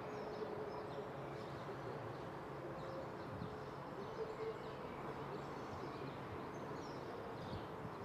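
Quiet outdoor ambience: a steady background hiss with faint, scattered small-bird chirps.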